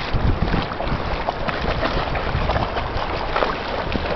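Wind buffeting the microphone with the splashing of a small puppy paddling through shallow water.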